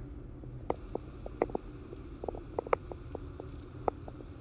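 Steady low rumble of room noise with a scattering of short, faint clicks and taps at irregular intervals.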